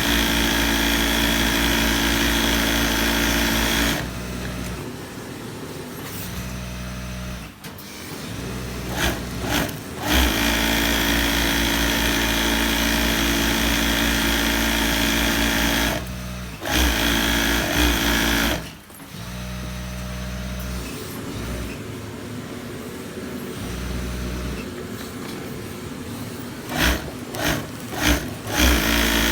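Sewing machine stitching in runs: a steady motor hum and whine for a few seconds at a time, stopping and starting, with short quick bursts in between and again near the end.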